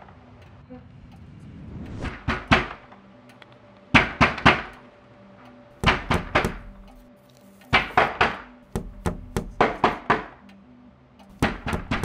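Repeated knocking: groups of three or four sharp knocks, about every two seconds, over a faint steady hum.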